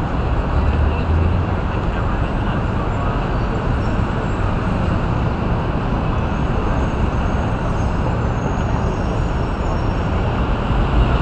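Busy city street traffic: a steady wash of engine and tyre noise from passing cars, vans and taxis.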